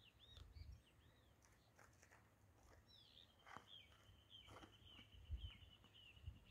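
Faint outdoor birdsong: a few short arching chirps, then from about three seconds in a fast, even trill of high notes that runs on. A few soft clicks and low rumbles lie under it.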